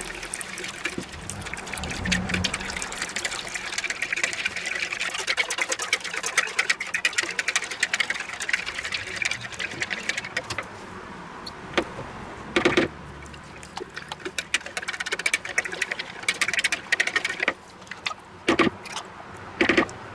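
Water poured into a plastic mixing bowl, then a wire whisk beating powdered cheesecake filling mix into the warm water: a fast, steady rattle of the whisk wires against the bowl. A few louder knocks come in the second half.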